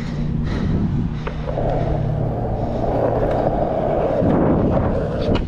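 Skateboard wheels rolling on rough asphalt, a steady rumble that gets louder about a second and a half in and keeps going almost to the end.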